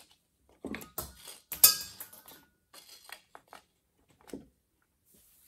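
The small metal accumulator spring of a VW 010 automatic transmission falling out and clattering against the metal case and parts. A series of clinks and knocks, the loudest about one and a half seconds in with a brief metallic ring, then a few lighter clicks.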